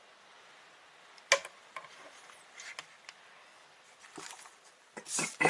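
Handling noise: a sharp click about a second in, then scattered lighter taps and clicks and a brief rustle near the end. The pump motor is not running.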